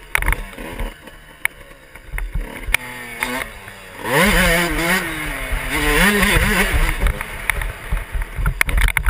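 Suzuki RM125 two-stroke single-cylinder motocross engine. It runs low and fairly quiet at first, with a few sharp knocks, then about four seconds in the throttle opens and the engine revs up sharply, its pitch climbing and wavering up and down as the bike accelerates.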